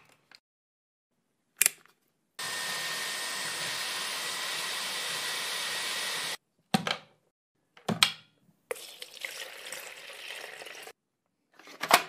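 Xiaomi Mijia G9 cordless vacuum cleaner switched on, running with a steady whine and rushing air for about four seconds, then cut off abruptly. Clicks and knocks follow, then a quieter whir for about two seconds and a sharp click near the end.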